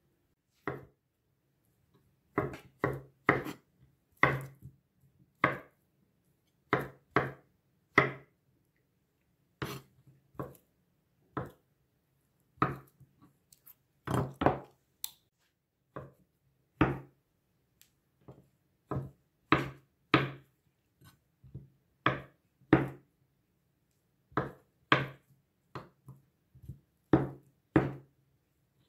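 Chef's knife dicing cooked potatoes on a wooden cutting board: sharp knocks of the blade meeting the board, about one or two a second at an uneven pace, sometimes in quick runs of two or three.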